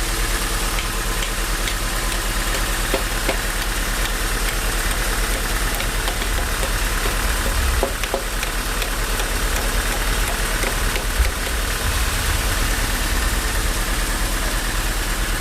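Sawmill machinery running steadily with an engine-like low hum, a few small knocks along the way.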